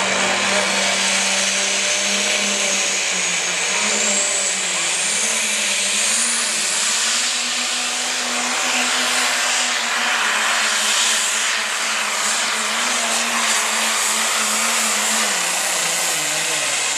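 Turbocharged diesel engine of a light pro stock pulling tractor running hard under the sled's load during a pull, with a high whine rising about four to six seconds in. Near the end the engine note sags and the sound falls away as the run ends.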